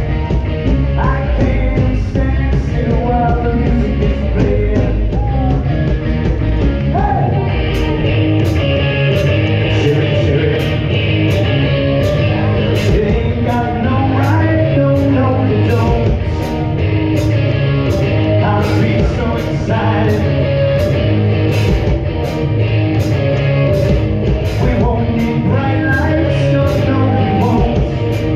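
Live rock band playing a song: electric bass, keyboard and vocals, with a steady cymbal beat of about two strokes a second coming in about eight seconds in. Mid-song a harmonica is played into the vocal microphone.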